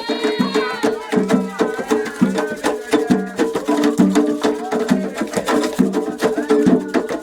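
Candomblé ritual music: atabaque hand drums and a struck bell keep up a fast, steady rhythm, with singing voices over it.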